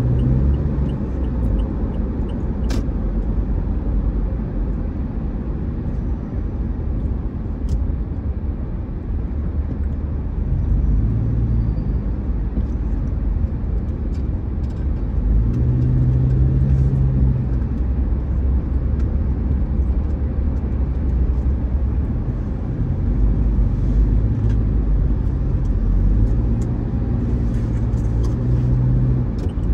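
Car driving in highway traffic, heard from inside the cabin: a steady low rumble of tyres and engine, with a low hum that swells and fades a few times.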